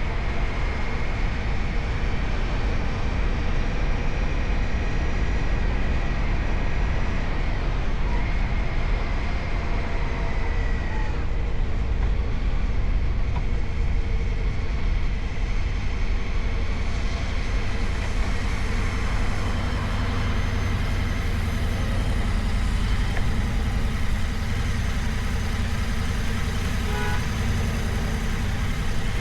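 2025 Indian Scout Sixty's V-twin engine running with a steady low rumble, overlaid by a thin, high-pitched whine. The whine is the sharp abnormal noise the owner says has grown steadily worse and that the dealer has not fixed.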